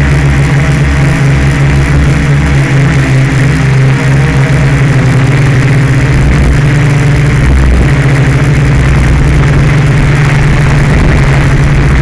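Electric motors and propellers of a Pixhawk-controlled multirotor drone, heard close up through its onboard camera: a loud, steady hum with a rushing noise over it, the pitch dipping briefly about seven and a half seconds in.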